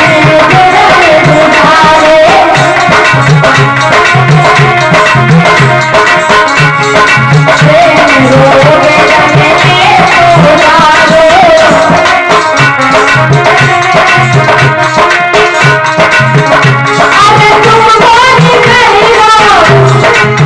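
Indian devotional bhajan music: a hand drum keeps a steady rhythm under a wavering melody line.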